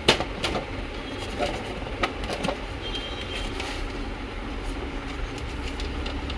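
Plastic side cover of a Canon LBP 2900B laser printer being worked loose from its snap locks: a few sharp plastic clicks and knocks in the first couple of seconds, over a steady low background rumble.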